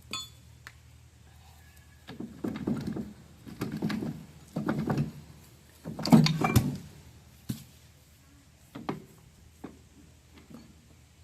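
A series of dull thuds and knocks from work on a tractor's rear axle half-shaft being taken apart, the loudest about six seconds in, followed by a few sharper clicks near the end.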